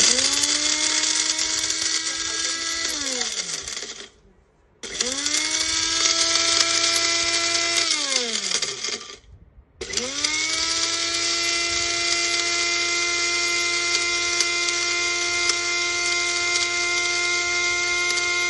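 Wonderchef Nutri-blend Smart mixer grinder's motor grinding dry spices such as bay leaves into powder, with a high whine and a hiss of grinding. It runs in two short pulses of about three seconds, each spinning down with a falling whine after a short pause, then starts again about ten seconds in and runs steadily.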